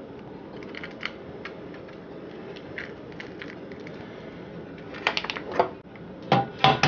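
Eggshells tapped and cracked on a ceramic bowl: small clicks from the shell, then a quick run of sharp taps about five seconds in and another just before the end, over a faint steady background noise.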